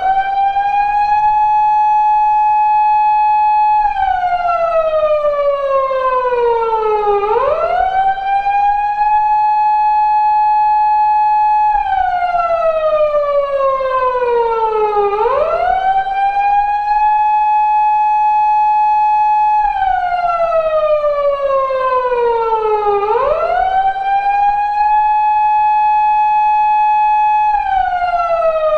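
A faithful recreation of the Japanese police car siren used on 170- and 180-series Toyota Crown patrol cars. It cycles about every eight seconds: the pitch rises quickly, holds a steady high tone for about four seconds, then slides slowly down before sweeping up again, about three and a half cycles in all.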